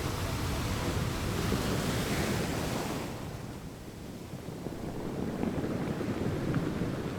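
Sea waves washing onto a shore in two swells. The first builds to a peak a couple of seconds in and falls away about three seconds in; the second builds again near the end.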